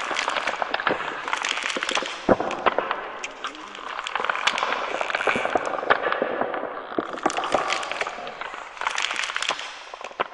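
Dense crackling and crunching as bare feet press and work into a heap of white powder, swelling and easing in waves with scattered sharper snaps, then fading away near the end.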